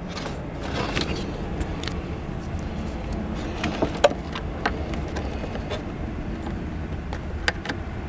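Scattered sharp clicks and fumbling of a plastic wiring connector being worked by hand onto the windshield washer pump, with the loudest click about four seconds in, over a steady low rumble.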